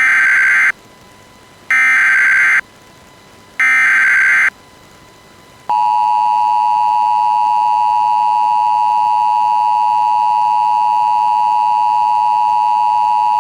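Emergency Alert System SAME header: three short bursts of digital data tones, each just under a second, followed by the EAS attention signal, a steady two-tone 853 and 960 Hz tone lasting about eight seconds.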